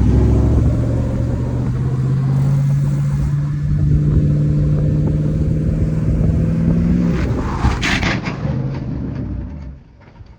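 A vehicle engine running hard at high, nearly steady revs that creep slightly upward, then dropping off about seven seconds in, with a few sharp cracks around eight seconds before the sound fades away.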